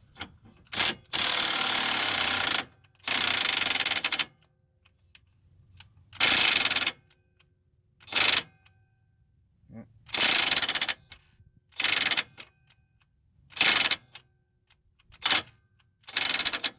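Cordless power wrench hammering on a nut in repeated bursts. The first two bursts last over a second each, then eight shorter bursts follow with pauses between them as the tool's battery goes flat.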